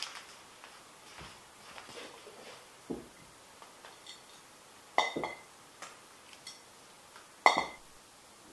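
Two sharp glass clinks, each with a brief ringing tone, about five seconds in and again near the end, from a glass jar and its lid on a table. Soft rustles of plastic-wrapped packs being handled come before them.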